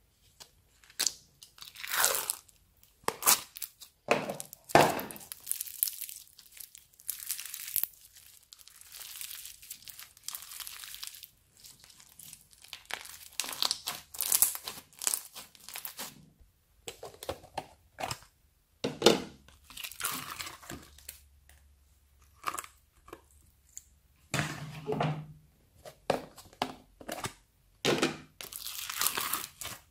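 Hands squishing, pressing and mixing slime studded with sprinkles and cut straw pieces, with plastic slime tubs handled: irregular squishes and crackles, some short, some lasting a second or two, with pauses between.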